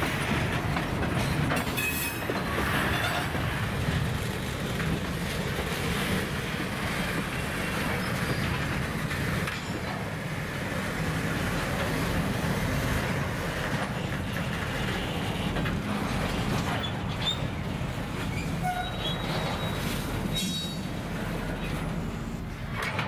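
Freight cars rolling slowly through a rail yard during switching: steel wheels rumbling and clicking over rail joints, with brief high wheel squeals and a few clanks now and then.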